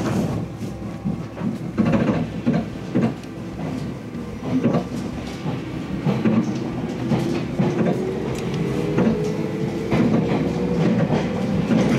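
Local electric train pulling away from a station, heard from inside the carriage: wheels clacking over rail joints and points, and from about halfway a whine that rises steadily in pitch as the train picks up speed.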